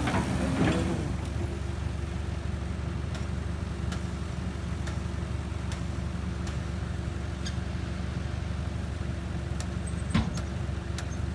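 A heavy vehicle's engine running steadily, with a single sharp knock about ten seconds in.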